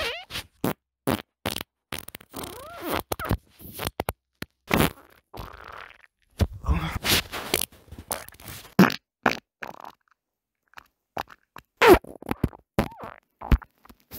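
Human farts recorded close on a phone microphone: a run of short, sputtering bursts with gaps between them, a few of them with a brief falling pitch.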